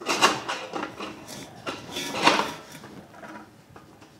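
Stainless-steel Cobb grill and rotisserie parts clinking and knocking against each other as they are set in place, a quick run of metal clatters that dies away after about three seconds.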